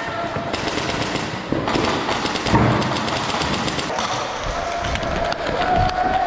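Airsoft guns firing rapid full-auto bursts, a fast run of sharp clicks that stops and starts. A steady tone comes in during the second half.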